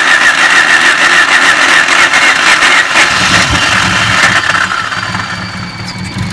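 Starter motor whining as it cranks a freshly head-swapped Honda Civic four-cylinder. The engine catches about three seconds in and keeps running: its first start after the head swap.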